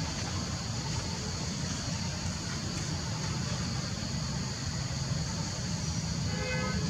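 Steady outdoor background noise: a low rumble with a steady high-pitched hiss over it, and a brief faint call near the end.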